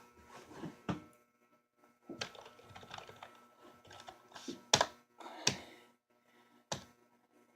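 Irregular clicks and knocks from a computer keyboard, keys pressed and plastic handled, with a few sharper knocks around the middle.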